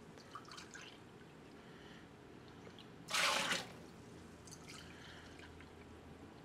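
Apple cider vinegar poured from a plastic jug into a small measuring cup with a faint trickle, and a brief louder splash of liquid about three seconds in as a cupful goes into a large stainless steel stockpot.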